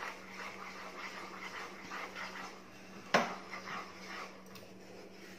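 Wooden spatula stirring thick cooked mango pulp in a metal pan, quietly scraping, with one sharp knock about three seconds in, over a low steady hum.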